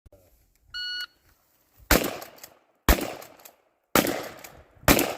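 A shot timer's electronic start beep, then four gunshots at a steady pace of about one a second, each with a short echoing tail.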